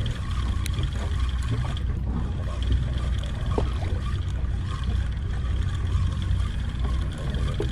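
Steady low rumble of a sportfishing boat's engine idling, with a steady hum above it.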